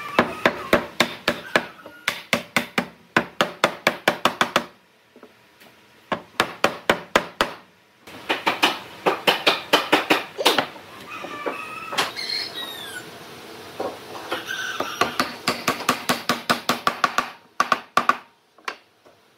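Hammer blows on wood in quick runs of about four to five strikes a second, with short pauses between runs.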